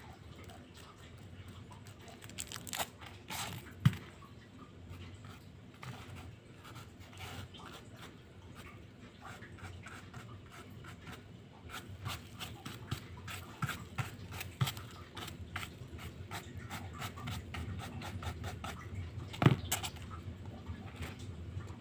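Coloured sand being sprinkled by hand and brushed across a sand-art picture board: a run of light scratches and taps. Two sharper knocks come about four seconds in and near the end.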